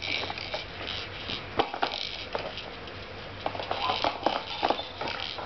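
Soft fabric rustling with scattered light clicks and taps as a baby tugs at a hat on her head.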